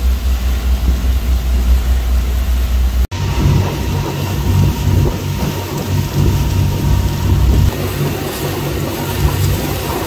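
Motorboat engine running steadily under way, over a steady rushing noise. The sound breaks off for an instant about three seconds in and comes back with a higher engine note.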